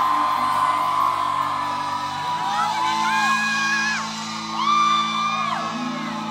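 Live R&B performance: a male singer holds two long sung notes that slide up, sustain and fall away, over the band's sustained low chords, which change about two seconds in.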